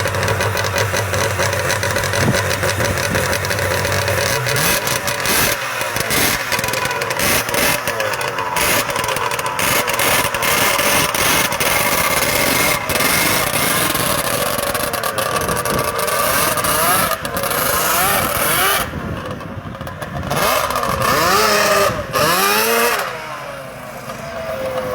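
Snowmobile-engined go-kart running and being driven, its engine note repeatedly revving up and dropping back. It fades somewhat near the end.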